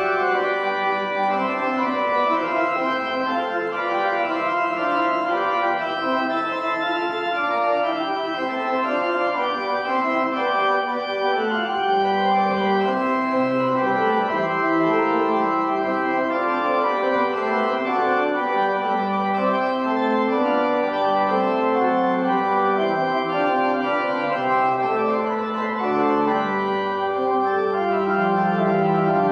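Organ music: slow, sustained chords held and changed in steps, with deeper bass notes coming in about halfway through.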